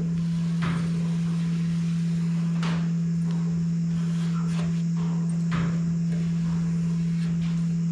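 A steady low hum of one pitch, the loudest sound throughout, with a few faint scratches of a marker tracing around a cardboard template on sheet steel.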